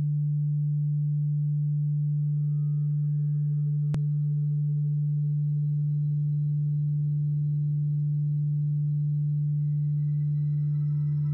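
Steady low drone tone of an ambient music intro, with fainter higher tones gradually joining in over the second half. A single short click about four seconds in.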